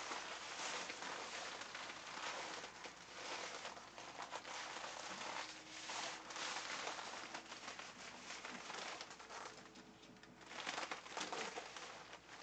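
PVC costume jacket and sauna-suit fabric rustling and crinkling in uneven swells as the wearer moves in them and adjusts the jacket front.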